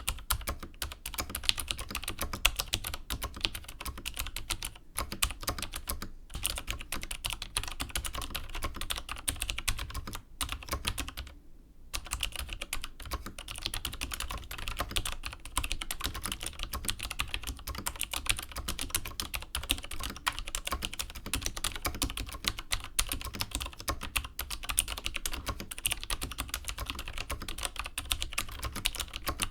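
Typing on a vintage keyboard with clicky Cherry MX Dark Blue switches: a fast, dense stream of key clicks. There is a short break about eleven seconds in.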